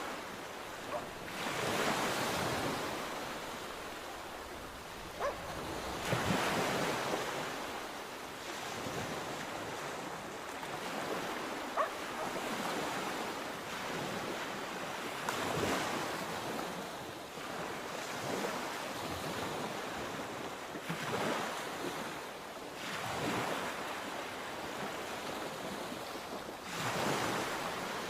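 Sea waves breaking and washing in, a steady surf hiss that surges every four to six seconds as each wave comes in.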